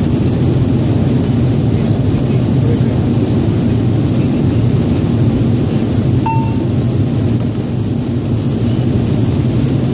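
Steady cockpit noise of an airliner on approach: a loud, even rumble of airflow and engines. A single short beep sounds a little after six seconds in.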